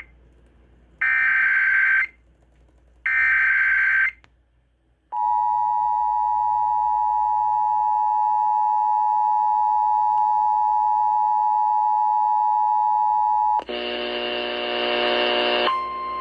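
Emergency Alert System tones on a radio broadcast: two one-second screeching bursts of SAME header data, then the steady two-tone attention signal held for about eight and a half seconds, announcing a tornado warning. A brief buzzy chord-like tone follows, then a steady single tone starts near the end.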